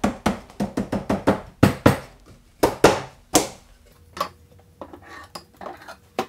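Half-inch Baltic birch plywood shelves knocking and clattering against the plywood carcass as they are fitted into glued dado slots: a quick run of light knocks, then a few louder, separate ones.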